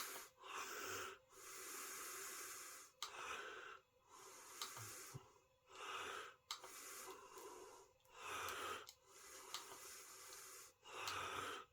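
A person breathing close to the microphone: a faint, even run of breaths, each about a second long, with short quiet gaps between.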